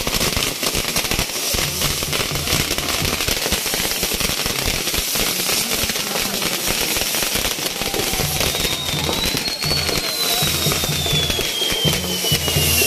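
Castillo fireworks tower burning: a dense, continuous crackle of firecrackers and spinning spark wheels. About two-thirds of the way through, a high whistle rises briefly, then slowly falls in pitch.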